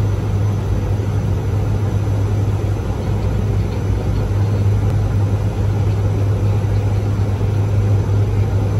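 Bombardier Dash 8-Q400's two turboprop engines and propellers, heard inside the cockpit on final approach. They make a loud, steady low drone over an even hiss, with no change in pitch.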